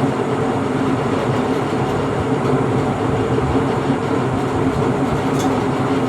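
Steady background hum and rumble of machinery, with a faint click about five seconds in.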